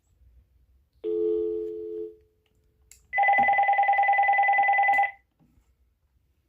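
A telephone dial tone sounds for about a second and fades. About a second later the Uniden DCT648-3 cordless phone's electronic ringer gives one rapidly warbling ring of about two seconds, signalling the incoming call.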